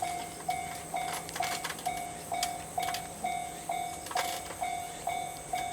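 Japanese railway level-crossing warning bell ringing steadily, about two electronic clangs a second, with a few sharp clicks in between.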